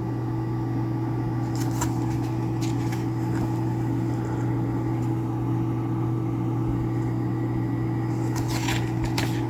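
Steady low electrical hum, as from a fan or household appliance running in the room, with a few faint rustles and taps from handling a booklet.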